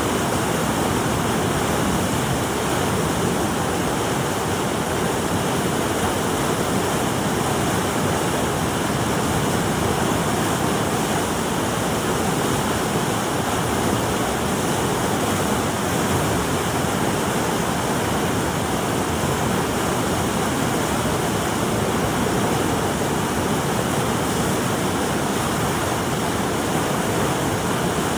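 Steady rush of flowing water, an even roar that does not rise or fall.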